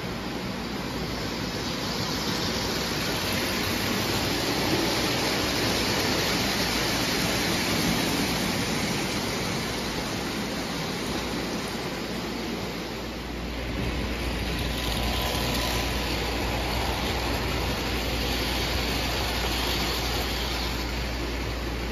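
O gauge model passenger train rolling on three-rail tubular track: a steady rumble of metal wheels on the rails, dipping briefly about halfway through and then growing a little louder as the cars pass close by.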